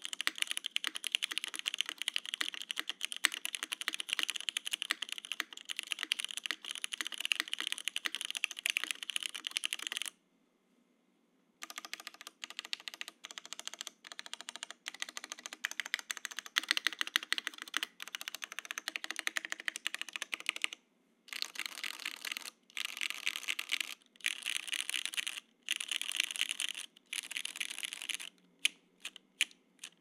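Typing on an Owlab Vento80 mechanical keyboard with stock, factory-lubed Cherry MX2A Black switches on an aluminum plate and GMK Space Cadet keycaps. Fast continuous typing, a short pause about ten seconds in, then bursts of typing with gaps and a few single keystrokes near the end. The alphas are a bit thin, quiet and scratchy, while the spacebar holds up well.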